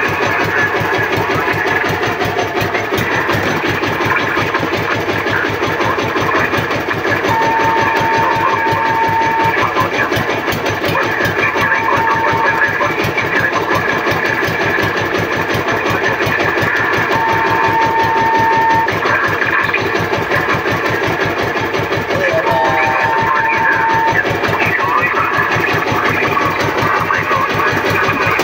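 A boat engine running steadily, with guitar music playing over it and a few held notes.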